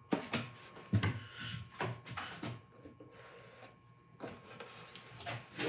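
A foamcore box being handled on a table top: a string of light knocks, scrapes and rustles, about half a dozen, as its glued panels are pressed and shifted.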